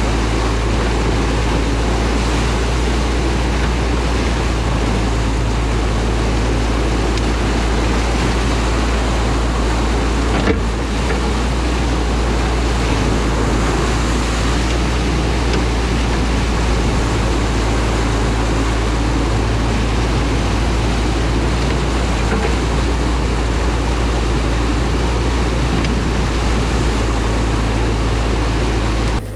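Excavator's diesel engine running steadily, a constant low hum under an even rushing noise.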